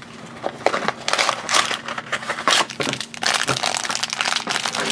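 Black foil blind-bag pouch crinkling and crackling as it is handled and torn open, with some handling of its cardboard blind box.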